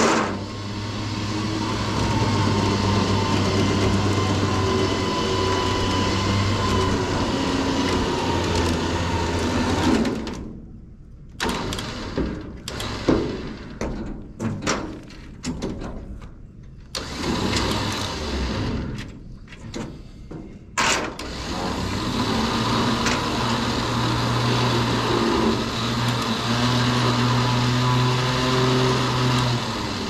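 Electric trailer winch running under load as it pulls a log onto the trailer deck, its pitch wavering with the strain. It stops about ten seconds in, gives a few short bursts and clanks, then runs steadily again from about twenty seconds in.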